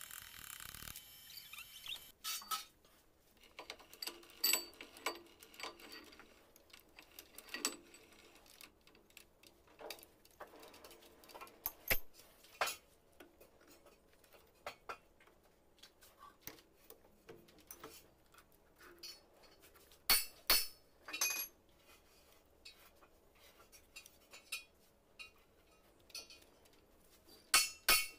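Scattered metallic clinks, taps and knocks, some leaving a short ring: slag being chipped off a weld-built-up stone-crusher shaft, then the shaft being clamped and adjusted in a lathe's four-jaw chuck. Louder clusters of clinks come about twenty seconds in and near the end.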